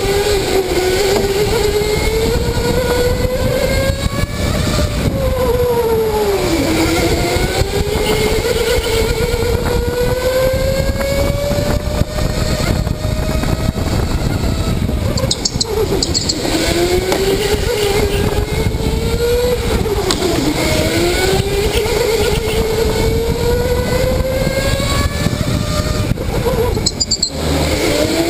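Electric go-kart motor whining, its pitch climbing steadily as the kart speeds up and dropping sharply several times as it slows for corners, over a heavy low rumble of vibration on the onboard camera.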